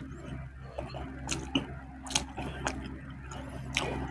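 Close-miked chewing mouth sounds: wet lip smacks and a handful of sharp, scattered mouth clicks while someone eats rice and fried milkfish by hand.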